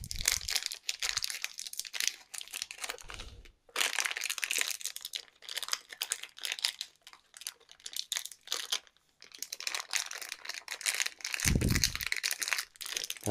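Small clear plastic bag of mounting screws crinkling and rustling in irregular bursts as it is handled and rummaged through, with a few dull bumps.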